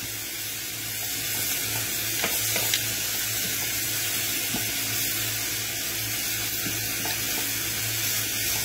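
Lamb's liver, bacon rashers and sliced onions sizzling steadily in a hot frying pan, with a few faint clicks of metal tongs as the liver is turned. A low steady hum runs underneath.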